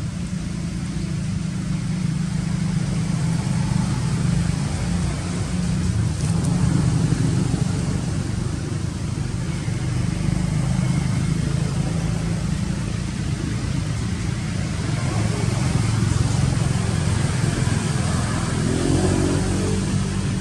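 A motor engine running steadily with a low rumble, its pitch rising briefly near the end.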